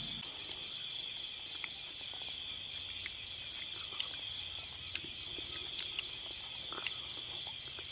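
Crickets calling at night: a steady high trill with a sharper, higher chirp repeating about twice a second over it.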